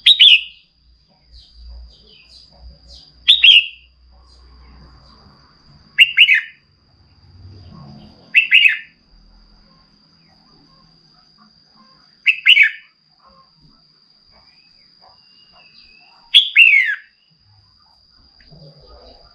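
Red-whiskered bulbul giving short, sharp calls, six in all, each a quick cluster of falling notes, a few seconds apart.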